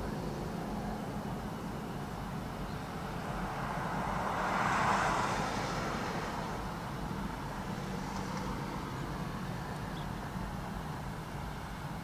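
Steady road traffic noise with a low hum, and a car passing by that swells and fades about four to five seconds in.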